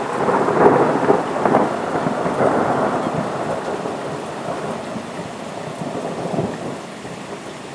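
A thunderclap rolling overhead, loudest about a second in and rumbling on as it slowly fades, over a steady hiss of rain.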